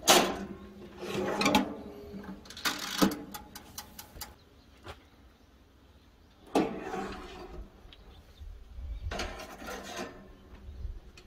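Small electric toaster oven being handled: its hinged sheet-metal door opened and shut and a steel blade set on and lifted off the wire rack, giving several sharp metal clanks and rattles a few seconds apart.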